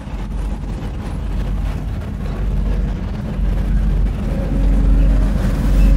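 Deep, steady rumble of a large ship coming close in, growing steadily louder, with a faint tone joining in over the last second or two.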